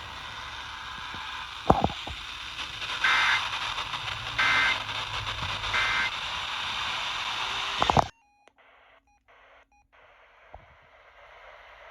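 Radio static hiss carrying three short two-pitch data bursts about a second and a half apart, the Emergency Alert System's digital SAME signal; a click comes before them, and the hiss cuts off suddenly about eight seconds in.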